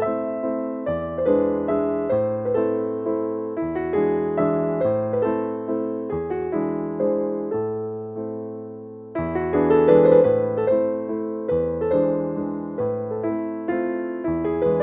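Background music: slow, gentle electric piano playing sustained chords and notes in a repeating pattern.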